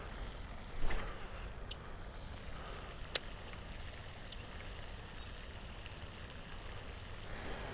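Baitcasting reel being wound in during a topwater retrieve, over a steady low rumble. A brief rushing burst comes about a second in, and a sharp click around three seconds.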